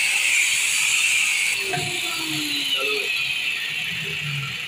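Electric angle grinder with an abrasive disc buffing the rubber inside a motorcycle tubeless tyre, roughening the surface around a cut ready for a patch. It makes a steady high hiss; about a second and a half in the sound drops off sharply, then fades steadily as the grinder winds down.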